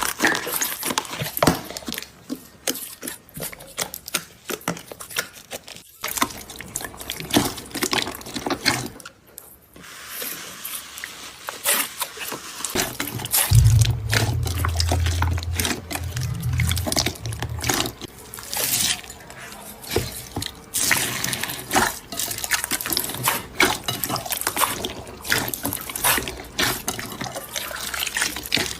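Slime being squeezed, poked and stretched by hand: wet squelching with many small sharp pops and clicks. A low hum joins in briefly about halfway through.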